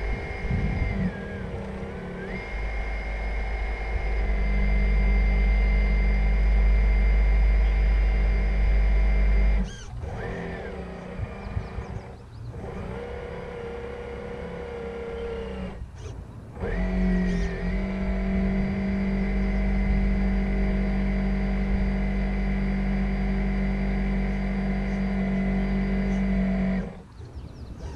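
A radio-controlled model container ship's electric drive motor whines steadily under throttle, heard from on deck, with a high steady tone and a low hum. It eases off about ten seconds in and cuts out briefly twice. It comes back to full power about seventeen seconds in, then drops off near the end.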